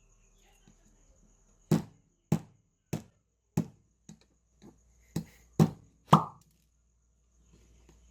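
About nine sharp knocks, roughly two a second, stopping a couple of seconds before the end. This is a 3D printer's plastic extruder being struck with an Allen wrench to knock out filament jammed inside it.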